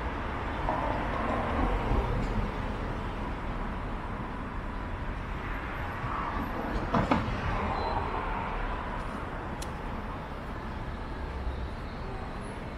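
Street ambience of road traffic: cars passing, rising and fading as a steady low rumble. A single sharp knock sounds about seven seconds in.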